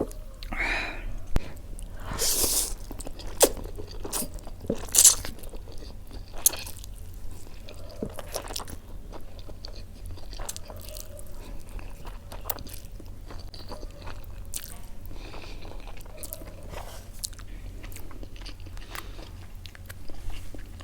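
Close-up eating of a crispy fried-chicken burger: several loud crunching bites in the first five seconds or so, then quieter chewing with small crackles.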